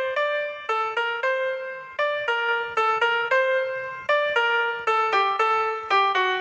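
Piano playing a simple one-note-at-a-time melody from a mobile-network ringtone cover, about two to three notes a second, each note struck and left to ring until the next.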